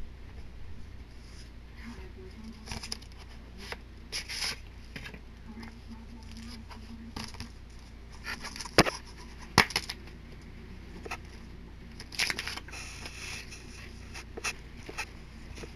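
Hands handling a DVD box set: the cardboard slipcover and plastic DVD case scrape, tap and click. There are two sharp clicks a little under a second apart about nine seconds in, and another cluster of clicks a few seconds later.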